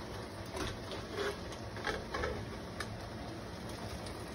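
Scattered light clicks and taps of a metal jar lifter knocking against a glass canning jar and the rim of a stainless-steel stockpot as the jar is lifted out of the hot water.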